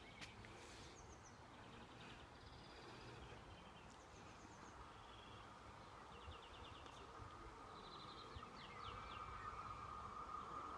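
Quiet countryside with birds chirping and giving short rapid trills, over a faint low rumble. A faint steady high-pitched tone grows louder near the end.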